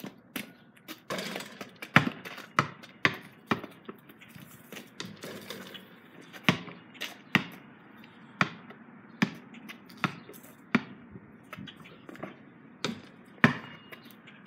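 Basketball bouncing on a concrete driveway. About two seconds in it bounces quicker and quicker and softer as it settles. From the middle on it is dribbled at about one bounce a second, with two louder bounces near the end.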